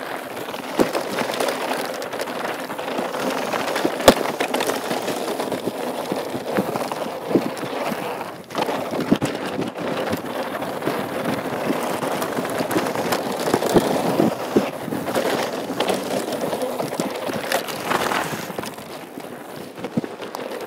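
Mountain bike (a Norco Truax hardtail) descending a rough gravel and dirt trail: a steady rush of tyres over loose stone with frequent sharp knocks and rattles from the bike over bumps, the loudest about four seconds in.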